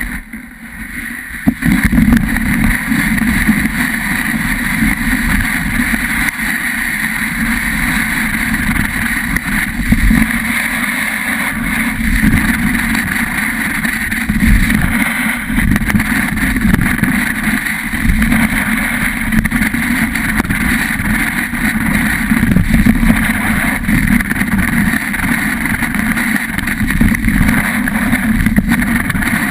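Steady loud rushing and scraping of a ride down a snow-covered ski slope: edges sliding over the snow, with wind buffeting the action camera's housing. It swells up within the first couple of seconds, then holds steady.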